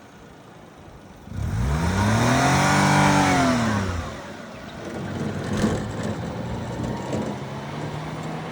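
A car drives past close by, its engine revving up and then easing off over about two and a half seconds, followed by a lower steady traffic hum.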